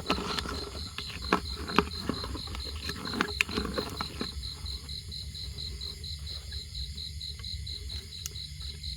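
A night insect, cricket-like, chirping steadily in a high, even pulse of roughly four chirps a second. Sharp clicks and rustling of handling are heard in the first four seconds, then stop.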